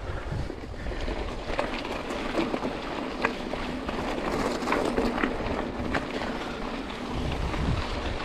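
Mountain bike tyres rolling over a loose gravel track, a steady crunch with many small clicks of stones, over a low rumble of wind on the microphone.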